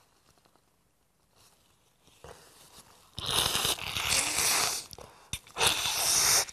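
Nose blown hard into a paper tissue twice, close to a clip-on microphone: a long blow about three seconds in, then a shorter one near the end.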